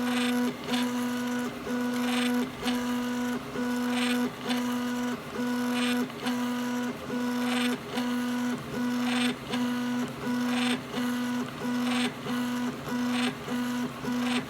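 3D printer's stepper motors whining steadily while printing, the tone broken by short pauses and brief higher-pitched chirps about twice a second as the print head moves back and forth.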